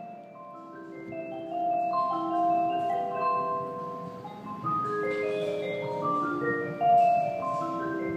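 Station train-approach melody from platform speakers: a marimba-like run of chiming notes, the phrase repeating about every four seconds.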